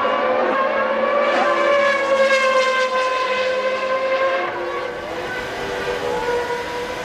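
Formula One racing car engines at high revs, holding a nearly steady high pitch with slight dips. The sound eases somewhat about two thirds of the way through.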